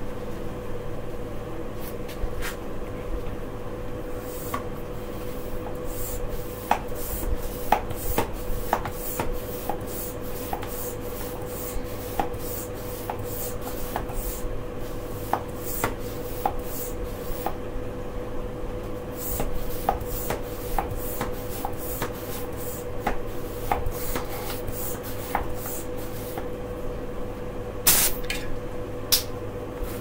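Gloved hands working over a knobby mountain-bike tire, with irregular scrapes and clicks of glove on tread, over a steady hum.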